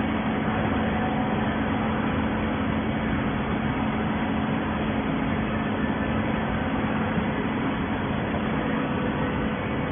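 Horizontal waste-paper baler running, a steady, unchanging machine hum with a constant low drone.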